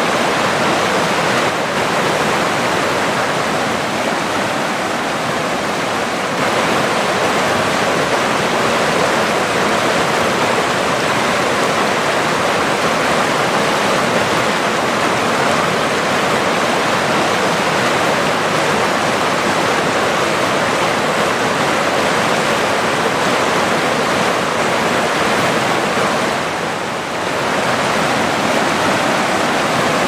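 Mountain river flowing fast, a steady rushing wash of water that softens briefly near the end.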